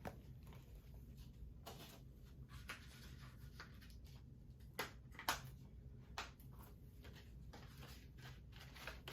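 Faint handling noise from a plastic Blu-ray case: a few scattered soft clicks and rustles over a low steady hum, the sharpest two close together about five seconds in.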